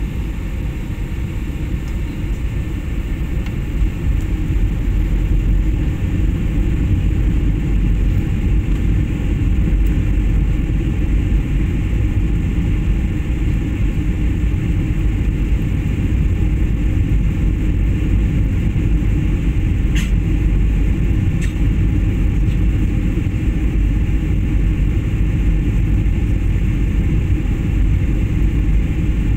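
Steady low rumble of a passenger airliner's engines and airflow heard inside the cabin, growing slightly louder a few seconds in. Two faint clicks come near the end, a second and a half apart.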